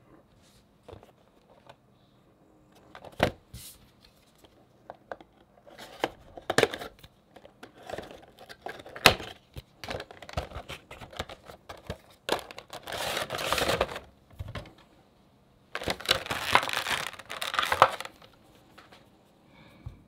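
A cardboard Funko Pop window box and its packaging being handled and opened: scattered taps, knocks and scrapes, then two longer stretches of crinkling, rustling packaging, a second or two each, in the second half.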